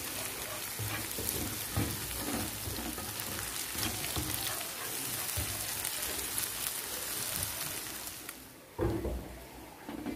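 Egg sizzling in hot oil in a non-stick frying pan while a spatula scrambles it, with repeated short scraping strokes. The sizzle falls away near the end and one loud knock follows.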